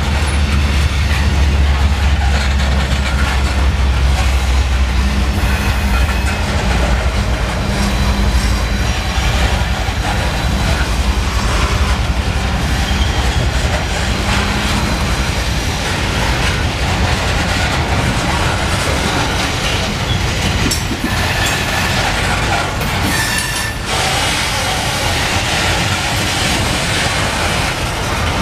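Loaded coal hopper cars rolling slowly past: steel wheels rumbling and clacking over the rail joints, with a heavy low rumble in the first several seconds and brief high wheel squeals a little before the end.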